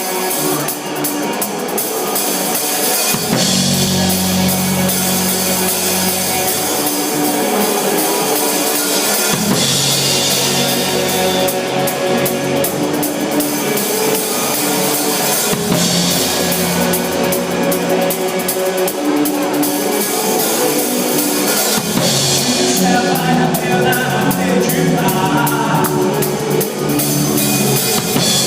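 Band music with a drum kit, loud and steady, with a low bass line coming in about three seconds in.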